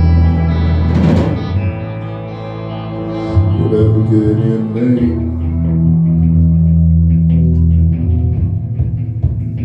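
A live rock power trio playing a psychedelic jam: electric guitar, electric bass and drum kit. There is a cymbal crash about a second in, the low bass drops out for a few seconds, and it comes back in about halfway through.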